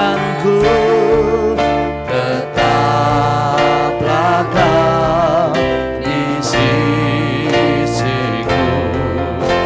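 An Indonesian worship song sung with vibrato over steady instrumental accompaniment.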